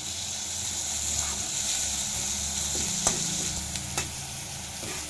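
Chopped tomatoes, onions and green chillies sizzling in oil in a kadai as the spice base for a tadka, stirred with a metal slotted spoon. The spoon clicks against the pan a few times in the second half.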